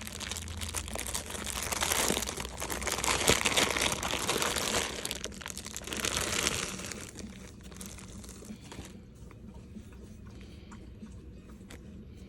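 Packaging crinkling and rustling as it is handled, loudest over the first half and dying down after about seven seconds to a few faint clicks.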